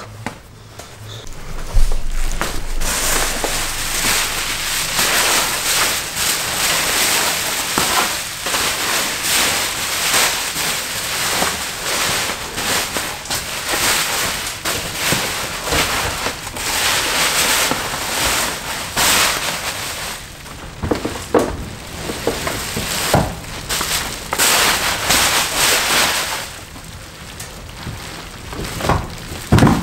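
Large sheet of plastic bubble wrap being unfolded and spread out by hand, crinkling and crackling continuously from about two seconds in, with a few sharper clicks near the end.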